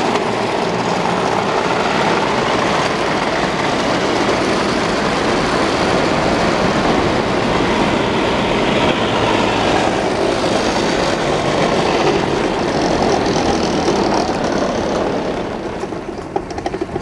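Trieste–Opicina tram running on its track, a steady rumble of wheels on rail heard from on board. Near the end the running noise drops away and a few sharp clicks follow.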